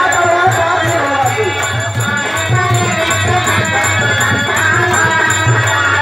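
Live biraha folk music: a harmonium plays a sustained melody over a steady rhythm of jingling percussion and a low drum pulse.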